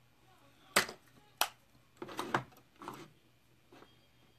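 About five or six sharp, irregular clicks and knocks from small makeup items (a plastic eye-shadow compact and brush) being handled, closed and set down on a table; the first, about a second in, is the loudest.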